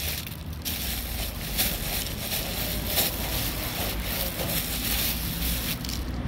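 Cat crunching dry kibble close up: an irregular run of crisp crunches over a steady low rumble.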